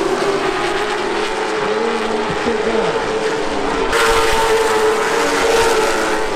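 A pack of late model stock cars running at racing speed on an oval, their V8 engines overlapping and rising and falling as they go through the turns. About four seconds in the sound turns louder and brighter.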